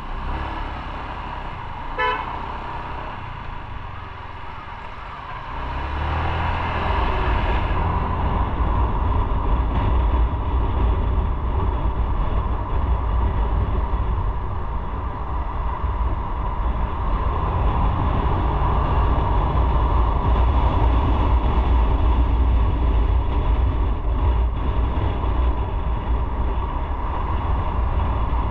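Motorcycle on the move: a short vehicle horn toot about two seconds in, then the low rumble of engine and wind grows louder about six seconds in and holds steady.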